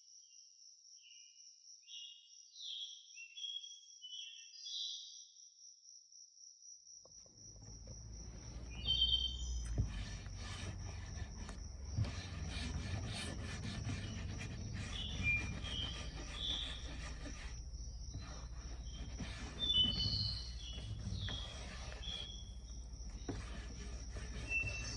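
Small birds chirping. About seven seconds in, a steady rubbing, scraping noise starts, with a few knocks, while the chirps go on.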